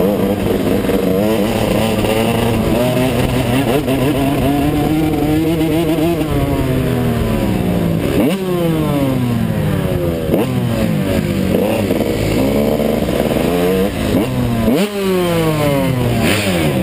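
Two-stroke 125cc motocross bike engine running at low speed, heard close up, with three quick throttle blips in the second half, each jumping up in pitch and falling away.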